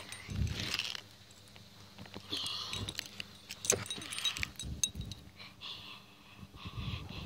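Scattered sharp metal clinks and clicks from a fidget spinner's small steel ball bearing being handled over asphalt, with rustling handling noise between them.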